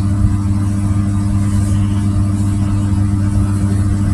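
Steady low mechanical hum, like a running motor, holding a few constant pitches without change.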